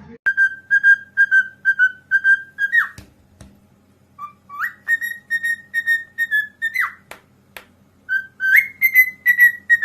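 Pet bird whistling three runs of short, evenly repeated notes, about three a second, each run ending in a quick up-and-down swoop. A few sharp clicks fall between the runs.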